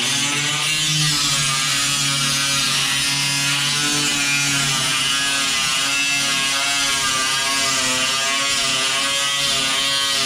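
Power cutting tool running continuously while cutting through the steel of a car's front quarter panel, its pitch wavering slightly as the load changes, over a strong steady hiss.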